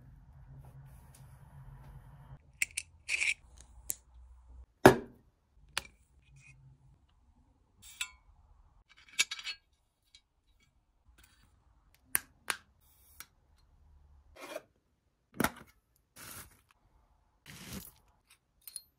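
Unboxing handling sounds: scattered clicks, taps, short scrapes and rustles of packaging and hard objects being picked up and set down. The loudest is a sharp knock about five seconds in.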